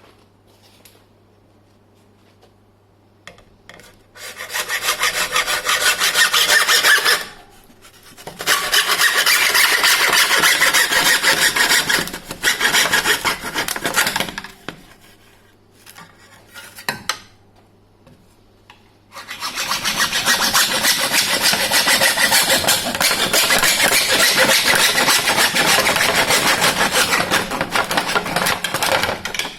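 Hand saw cutting through a Cannondale SuperSix carbon frame around the bottom bracket, in three long bouts of steady back-and-forth strokes with short pauses between.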